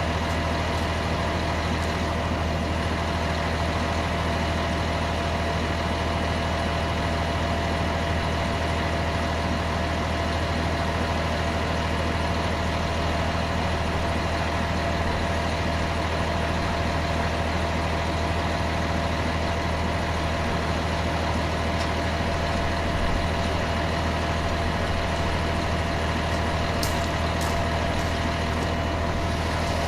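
Heavy truck engine idling steadily, a constant low diesel hum, with a few faint ticks near the end.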